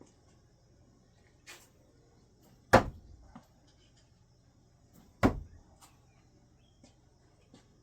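Two thrown no-spin screwdrivers hitting the target with sharp thuds, about two and a half seconds apart, with a few faint clicks between them.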